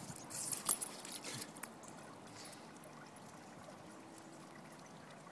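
Water splashing and trickling on wet concrete, with a few sharp clicks in the first second and a half, then a faint steady hiss.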